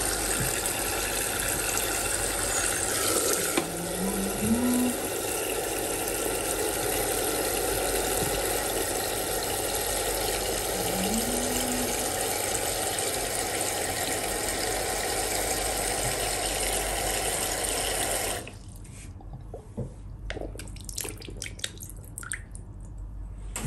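Folding portable washing machine running its wash cycle: a steady motor hum mixed with churning water, which cuts off abruptly about 18 seconds in. A few light clicks and knocks follow.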